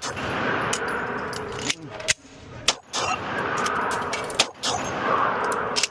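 Pistol shots in a shooting string, several sharp cracks spread over the few seconds, with metallic gear clatter around a fumbled magazine reload.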